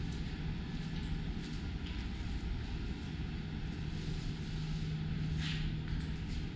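Steady low engine rumble with a constant low hum, growing a little louder past halfway. A short hiss comes about five and a half seconds in.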